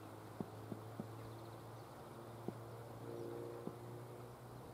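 Quiet outdoor ambience on a cricket ground with a low steady hum and a few soft, scattered clicks, then a single sharp knock at the very end as the delivery reaches the batsman.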